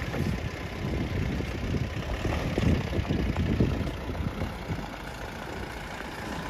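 Mahindra Bolero 4x4 engine running at low revs as the SUV crawls over a boulder-strewn riverbed, with uneven low rumbling from the tyres on the rocks. It eases off slightly in the second half.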